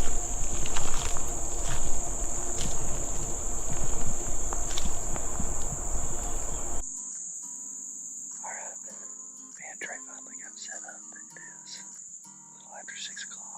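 Crickets trill steadily in a high, unbroken drone. For the first seven seconds, loud rustling and thumping from people walking in through vegetation sits over it, with a low rumble. It then cuts abruptly to a quieter bed where soft background music comes in under the insects.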